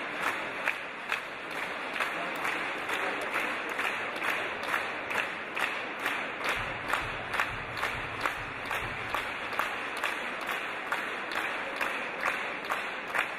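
Audience applauding, with clapping in time at about two claps a second over general applause.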